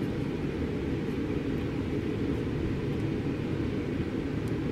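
Steady low rumble of noise, even and unchanging, with nothing in the higher range and no distinct events.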